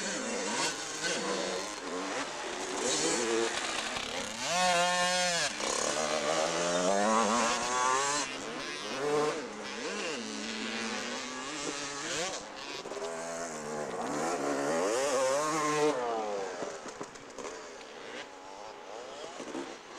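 80cc two-stroke motocross bikes running on a dirt track, their engines revving up and dropping back over and over as the riders work the throttle over the jumps. The loudest rise and fall comes about five seconds in, and the engines are quieter near the end.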